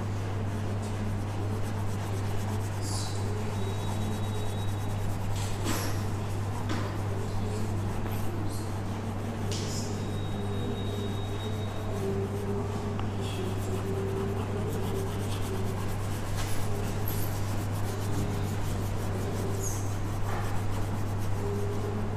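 Chalk rubbing and scratching on a blackboard as a tree is shaded in with green chalk, with a few short taps, over a steady low hum.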